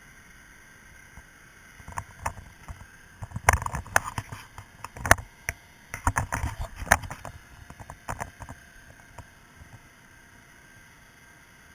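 A run of irregular clicks and knocks, like hard objects being handled, for several seconds, over a faint steady hum.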